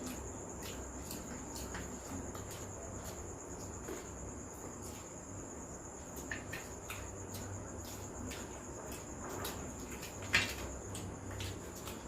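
Soft irregular clicks and smacks of people chewing and eating boiled eggs, over a steady high-pitched whine. One sharper click stands out about ten seconds in.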